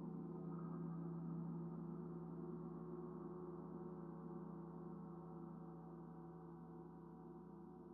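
Large suspended gongs ringing out: a deep steady tone with many wavering higher tones above it, slowly fading.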